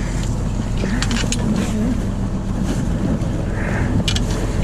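Fishing boat's engine running steadily with wind on the microphone. A few sharp clicks and knocks about a second in and again about four seconds in come from fish being handled in a bucket.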